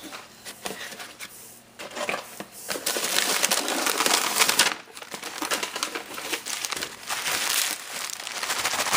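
Wrapping paper crinkling and rustling as a gift is unwrapped by hand, loudest from about three to four and a half seconds in.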